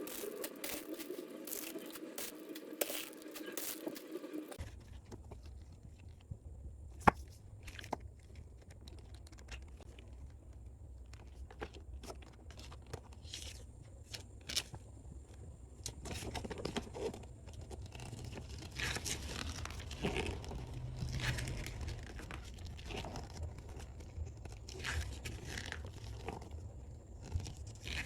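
Model-kit packaging being handled: plastic wrap and bags crinkling and tearing, with scattered clicks and light knocks of parts and box, over a steady low hum.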